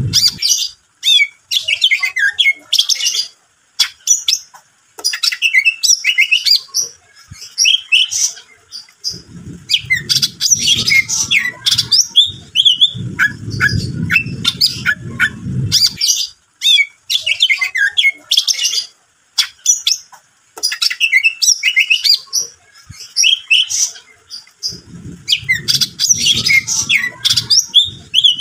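Cucak ijo (green leafbird) in full song: a fast, varied run of chirps, whistles, trills and harsh notes in long phrases with brief pauses. A low rumble sits under the song at times.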